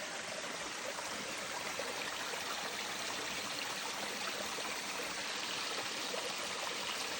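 Water of a small stream flowing steadily.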